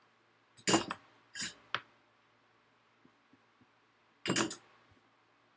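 A few short clinks and taps from handling the soldering iron and the small soldered glass piece: three close together in the first two seconds, some faint ticks, then one more about four seconds in.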